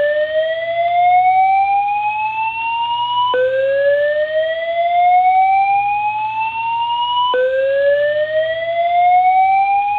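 SpectrAlert Advance fire alarm wall speaker sounding the slow-whoop evacuation tone. It is a single loud tone that glides steadily upward for about four seconds, then snaps back to low pitch and starts again, twice within these seconds. The tone fills the gaps between the recorded evacuation messages.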